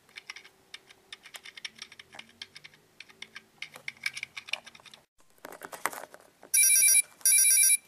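Light, irregular clicks and taps from small plastic toys being handled on a tabletop. About six and a half seconds in, a loud electronic mobile-phone ringtone sound effect starts, in two bursts.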